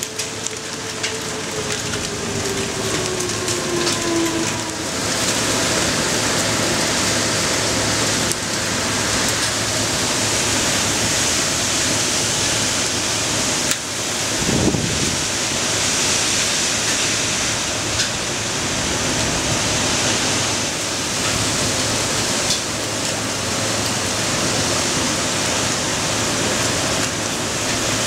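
Heavy hailstorm: rain and hail pouring down on parked cars and pavement in a steady rush, with sharp hailstone ticks in the first couple of seconds. A brief low rumble of thunder comes about halfway through.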